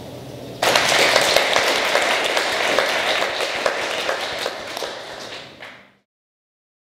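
Audience applauding, many hands clapping. It starts suddenly about half a second in and fades out near the end.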